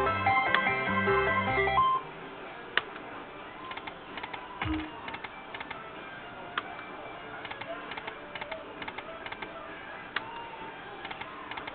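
Lightning Link slot machine playing a short electronic jingle of stepped tones for about two seconds, then the quieter casino-floor hum with many light scattered clicks.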